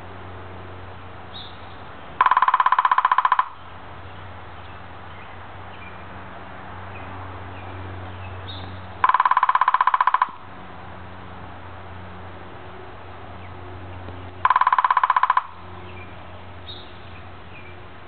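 Downy woodpecker drumming on a dead timber bamboo culm: three rapid, even drum rolls of about a second each, several seconds apart. The hollow bamboo rings with a pitched tone under the taps.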